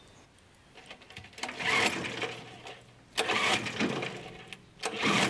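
Three pulls on the recoil starter cord of a Suffolk Super Punch/Colt lawnmower, turning the engine over. Each pull is a short whirr that starts suddenly and fades, about a second and a half to two seconds apart.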